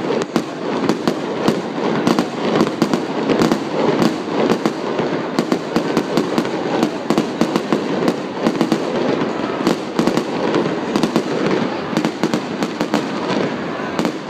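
Fireworks display with aerial shells bursting overhead: a dense, irregular run of sharp bangs, several a second, over a steady wash of noise.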